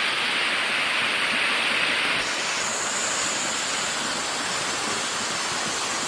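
Waterfall's rushing water: a loud, steady hiss of falling water that shifts in character abruptly about two seconds in.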